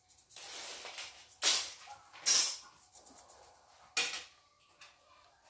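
Small metal parts and a hand tool handled on a wooden workbench: a scraping rustle, then three sharp clatters, the last about four seconds in.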